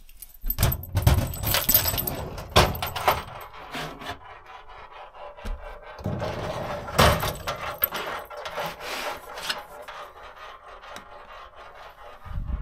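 A bunch of keys jangling as a cabinet door is unlocked and opened, with rubbing, clicks and knocks of handling. The noise comes in two busy spells, about half a second in and again about six seconds in.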